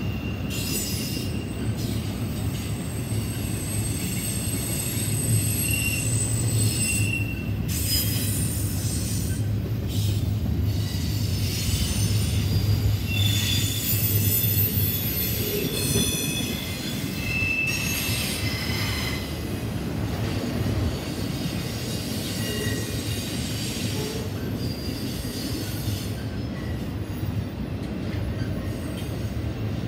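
Intermodal freight train rolling past: a steady low rumble of the cars on the rails, with short high-pitched wheel squeals now and then.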